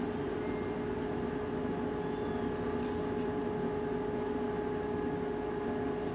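Strong wind blowing over open water, a dense steady rumble with a constant hum running underneath.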